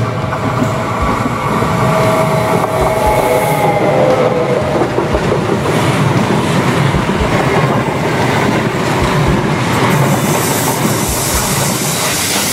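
A two-unit Renfe Alvia passenger train passing close by, a steady rumble with its wheels knocking rhythmically over the rail joints. A thin squeal of wheels on the rail comes a couple of seconds in.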